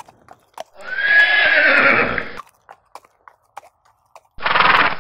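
A horse whinnying for about a second and a half, the call's pitch lifting slightly and then falling away. Near the end comes a second, shorter sound with a rapid flutter, with faint scattered ticks in between.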